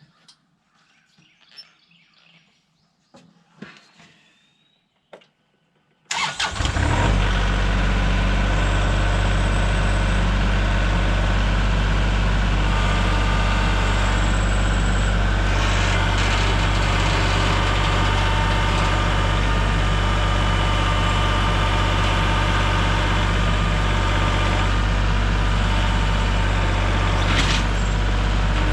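An engine starts up about six seconds in and then runs steadily at an even speed, with a deep, constant hum.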